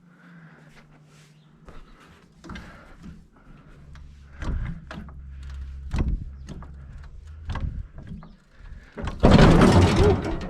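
A jack being worked under a grinder mixer, with a series of metal clanks and knocks. Near the end comes a loud crash lasting about a second as the machine's weight comes down off its block.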